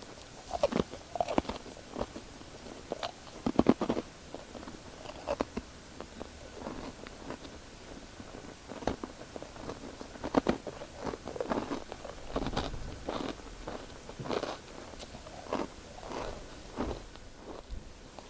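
Close-up eating of a snack: irregular crunchy bites and chewing, with a cluster of louder crunches about three and a half seconds in and again around ten seconds.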